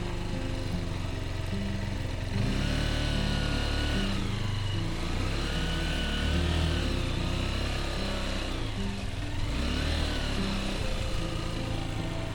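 Motorbike engine running under load, revving up and down in repeated swells.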